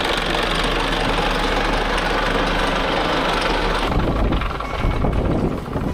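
Anchor chain paying out over the catamaran's bow windlass: a steady, dense running noise. About four seconds in it gives way to a lower, uneven rumble.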